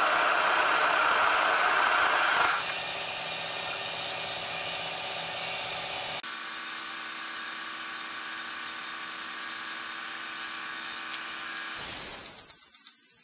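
Drill bit spinning at about 1460 RPM cutting a hole into a small metal wheel hub, a loud, steady cutting noise. About two and a half seconds in the cut ends and it drops to the quieter, even hum of the spindle running free. About six seconds in the hum changes to a different steady tone, and it fades near the end.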